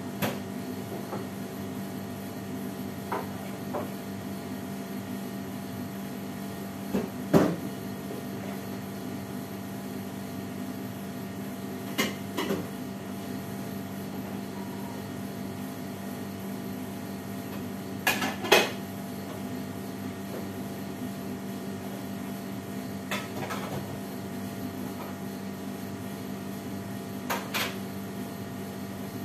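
Dishes and utensils knocking and clinking as they are washed at a kitchen sink: short sharp clatters in pairs every few seconds, loudest about seven and eighteen seconds in, over a steady machine hum.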